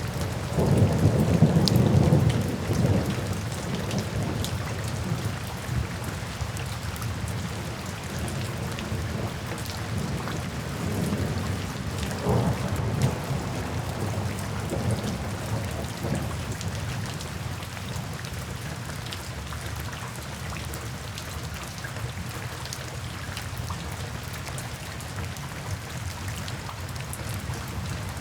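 Thunderstorm: steady rain with a roll of thunder rumbling loudest in the first few seconds and smaller rumbles later, settling to rain alone near the end.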